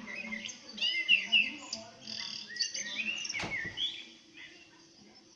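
Several birds chirping and calling in a recorded nature soundscape played back through a phone speaker, dying down near the end.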